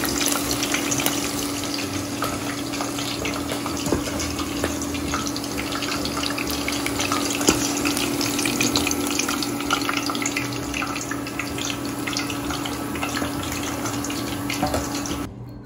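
Hot oil sizzling and crackling in a stainless steel kadai as battered cauliflower fritters with curry leaves and green chillies fry and are lifted out with a wire spider strainer, over a steady hum. The sound cuts off shortly before the end.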